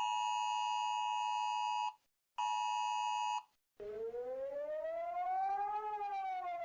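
Emergency Alert System attention signal, a steady pair of high tones sounded together: about two seconds, a short break, then again for about a second. After it, a siren-like wail that slowly rises and then falls.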